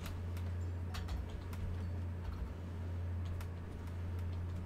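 A few scattered computer keyboard keystrokes over a steady low electrical hum.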